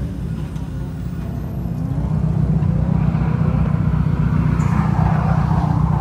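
Car engine running with a low, uneven rumble that grows louder about two seconds in, with a rushing noise joining over the last three seconds.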